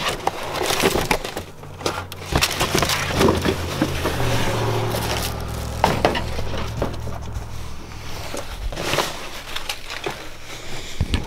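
Cardboard boxes and clutter being shifted and rummaged through by hand: irregular scraping, rustling and knocks of cardboard and wood, with a low hum for a few seconds in the middle.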